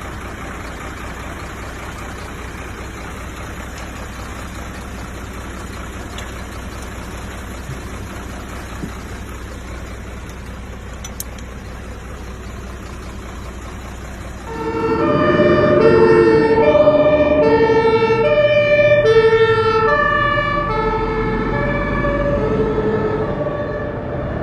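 Fire engine running with a steady engine and road noise. About fifteen seconds in, its siren comes on loud, alternating between two notes.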